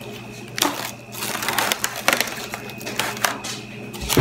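Plastic cling film crinkling and crackling in irregular bursts as it is stretched and pressed down over a glass bowl, with a loud thump near the end.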